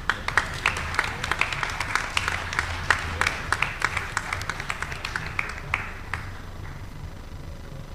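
Applause from a seated audience and panel, many hands clapping at once, thinning out and stopping about six seconds in.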